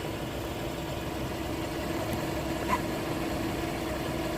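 Hyundai Elantra's engine idling steadily, with a single short click about two and a half seconds in.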